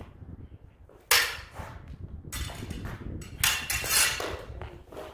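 Steel HEMA training sabres clashing in sparring: a sharp ringing clash of blade on blade about a second in, then a quick run of further clashes and blade contact a couple of seconds later.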